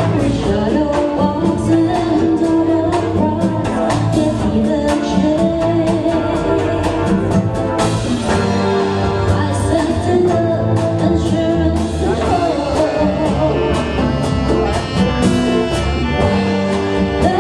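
Live dance band playing a slow, smooth song, a vocalist singing over a steady drum beat with bass and sustained chords.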